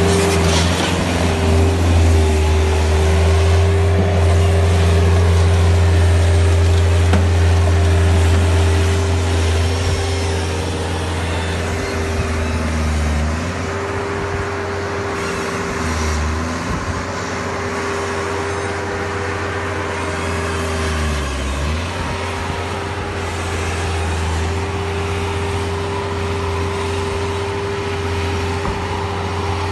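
Bobcat skid-steer loader's engine running steadily while working. Its pitch dips and recovers a few times in the middle as it takes load, spreading sawdust bedding.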